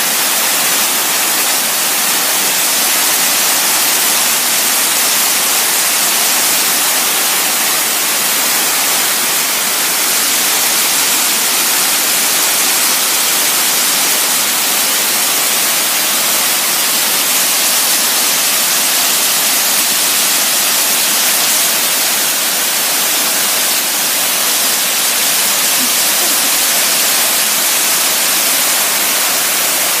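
Broad curtain waterfall pouring over a rock wall into a plunge pool: a steady, powerful rush of falling water.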